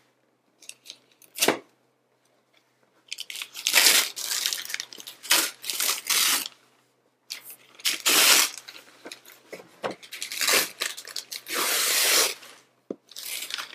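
Wrapping paper being torn off a present: a few small crackles, then from about three seconds in a run of loud rips and crinkling with short pauses between them.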